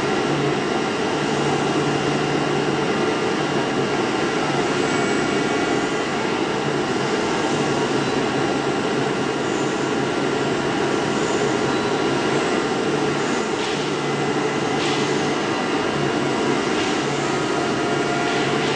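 DCZ70 flatbed oscillating-knife cutting machine running as its cutting head works across a sheet of board: steady machine noise with a low hum that comes and goes, and a few faint clicks about two-thirds of the way through.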